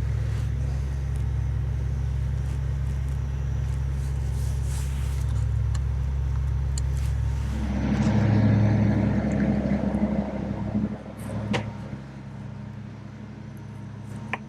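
A motor vehicle's engine running steadily with a low hum. It grows louder about halfway through, then drops away, and a few sharp clicks follow.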